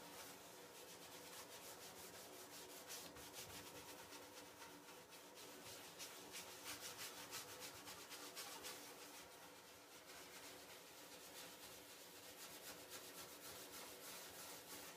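A brush scrubbing pigment across the face of a carved wooden printing block: a faint, dry, scratchy rubbing of quick repeated strokes.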